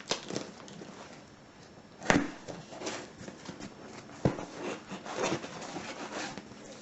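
Cardboard parcel being cut open with a blunt knife: crackling and scraping of tape and cardboard, with a few sharp knocks, the loudest about two seconds in.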